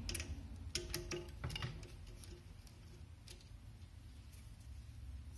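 Faint clicks and taps of small parts being handled at a 3D printer's hotend: a screwdriver and the brass fitting knocking against the aluminium heatsink as the fitting is turned. Most of the clicks come in the first two seconds, with a few scattered after.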